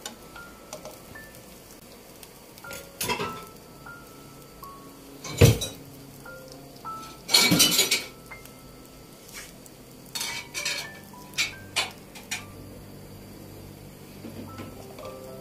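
A metal fork knocking and scraping against a nonstick frying pan as a frying pastry is poked and lifted, in irregular clinks. The loudest knock comes about five seconds in, with a quick run of scrapes a couple of seconds later and lighter taps after that.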